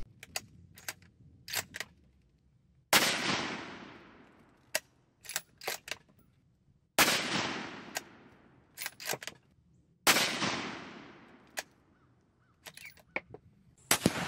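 Three shots from a 6.5 Creedmoor Ruger American bolt-action rifle, each a sharp crack that fades away in a long echo, spaced about three to four seconds apart. Short clicks between the shots come from the bolt being worked.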